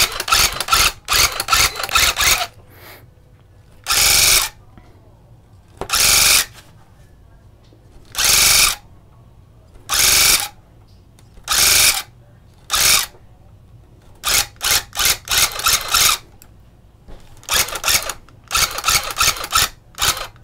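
Electric cut pile tufting gun running in short bursts as the trigger is pulled and released, shooting yarn into the backing cloth. It opens with a run of quick bursts, has about six half-second bursts a second or two apart in the middle, and ends with quick bursts again.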